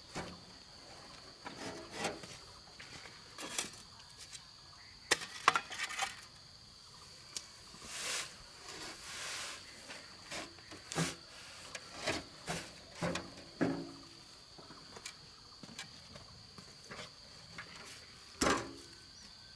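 Scattered hard clinks and knocks of bricklaying and cement work, the loudest one near the end, over a steady high-pitched insect drone.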